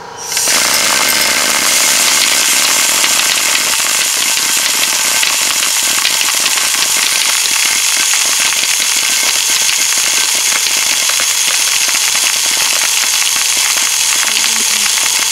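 Homemade soda-bottle airsoft machine gun firing on full auto. A steady rush of compressed air from the blow nozzle carries a dense, rapid rattle of BBs churning in the plastic bottle and shooting out of the barrel. It starts about half a second in and keeps going without a break.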